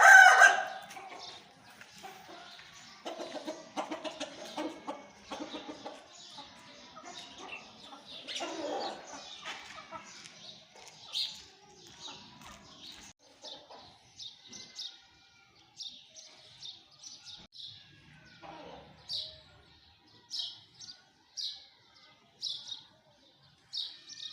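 Chickens clucking, with the tail of a loud rooster crow at the very start. From about halfway on, a string of short high chirps comes roughly once or twice a second.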